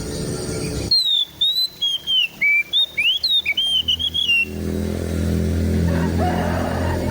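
Oriental magpie-robin (kacer) singing a rapid string of short, varied whistled notes that swoop up and down, starting abruptly about a second in. From about four seconds a steady low hum sounds underneath.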